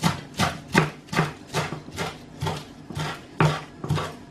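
Kitchen knife chopping fresh parsley on a wooden cutting board: a steady run of sharp knocks, about two and a half strokes a second.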